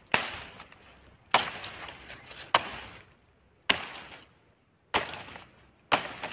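Machete chopping into the green fronds of a felled oil palm: six sharp strikes a little over a second apart, each fading off quickly.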